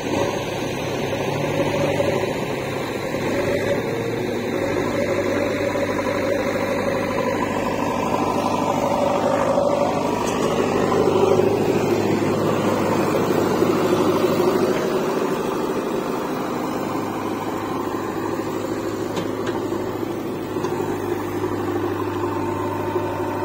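Diesel engine of a JCB 3DX backhoe loader running steadily, with a tractor's diesel engine running alongside.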